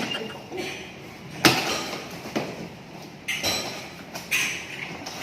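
Cardboard bicycle shipping box being opened by hand: several sharp knocks about a second apart, each followed by a short scraping rustle of cardboard.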